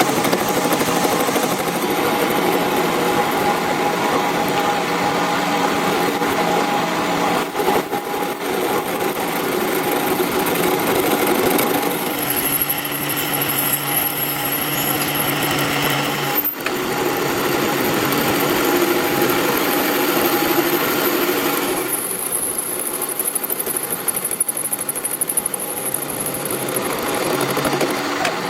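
Metal lathe running steadily in a steel workshop job, its motor and cutting giving a mechanical whine with several steady tones. The sound changes character about twelve seconds in, breaks off briefly around sixteen seconds, and shifts again at about twenty-two seconds.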